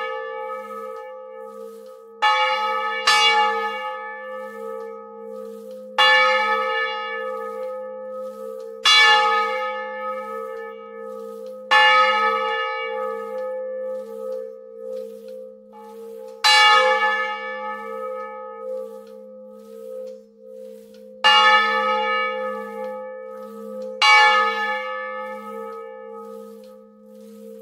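Swinging bronze church bell, its clapper striking the bell eight times at uneven intervals two to five seconds apart. Each stroke is a bright clang that fades slowly, and a low hum rings on between strokes.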